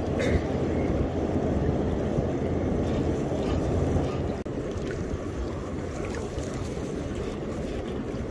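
Steady wind rushing over the microphone, with choppy water lapping close by.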